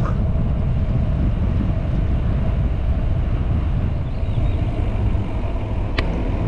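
Steady wind rumble on the microphone of a camera riding along on a moving bicycle, with one sharp click near the end.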